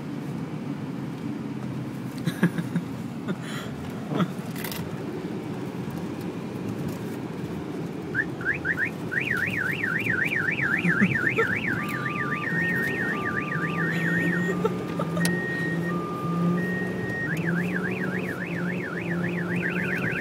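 Low car engine and road noise, then about eight seconds in an electronic police siren starts: a fast yelp of about four rises and falls a second, switching after a few seconds to a two-tone hi-lo, and back to the yelp near the end.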